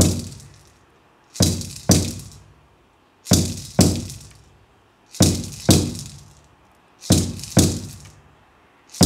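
Rawhide frame drum played in a heartbeat rhythm: pairs of strokes about half a second apart, repeating roughly every two seconds. Each stroke has a deep boom that rings out and fades.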